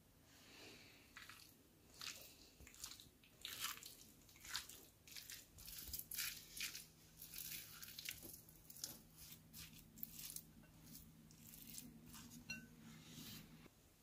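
Wooden spatula mixing diced raw chicken breast, cooked rice and black pepper in a glass bowl: quiet, irregular scraping strokes, several a second, stopping just before the end.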